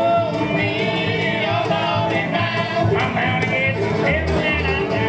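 A live band playing: a singer's wavering voice over steady bass notes and regular drum hits.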